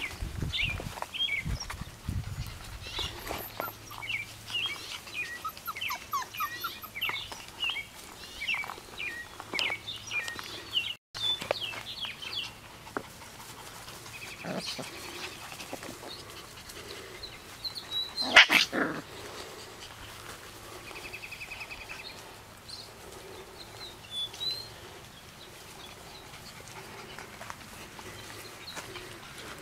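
Shepherd puppies whining and yipping in a string of short, high cries, with one loud bark about 18 seconds in.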